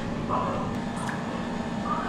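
Background ambience: a steady low hum with faint, muffled voices in the distance.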